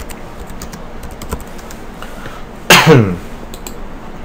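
Computer keyboard keystrokes, scattered clicks as a date is typed into a spreadsheet cell. About two and a half seconds in, a short, loud throat sound from the person at the keyboard, falling in pitch, is the loudest thing heard.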